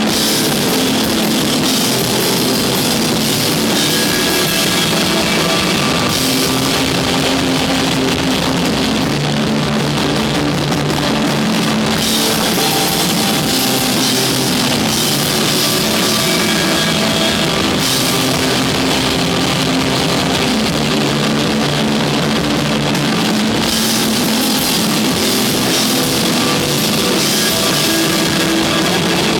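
Desert rock band playing live: drum kit, bass and electric guitars. The guitar-and-bass riff sustains over a cymbal wash that swells and eases roughly every six seconds.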